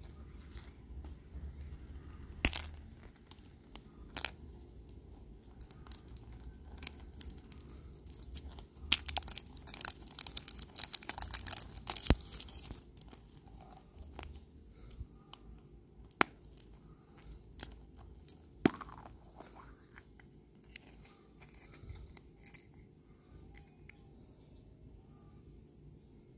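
Thin plastic shrink-wrap film being torn and peeled off a plastic surprise-egg capsule, crinkling in a dense burst lasting several seconds from about a third of the way in. Scattered sharp single plastic clicks and taps come from the capsule as it is handled and snapped open.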